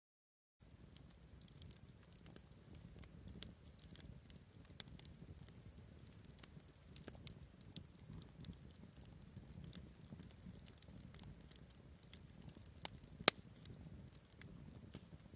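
Faint outdoor ambience: a steady high insect trill with small regular pulses, over scattered soft crackles and clicks, one sharper click near the end.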